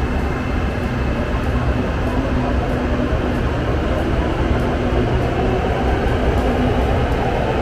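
SRT Red Line electric commuter train running: a steady rumble with a low hum, growing a little louder in the second half.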